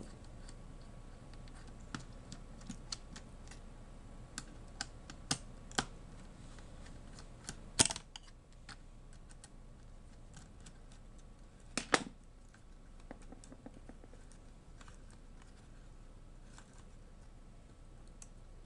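Light scattered clicks and ticks of a small screwdriver and metal screws against a laptop's case as the three screws holding the cooler are undone, with two sharper knocks about eight and twelve seconds in.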